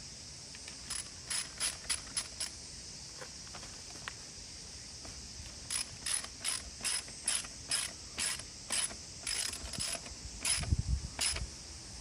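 Ratchet socket wrench being worked in short strokes, each back-swing giving a quick rasp of pawl clicks. There are a few strokes first, then a steady run of about two to three a second, with a dull thump near the end.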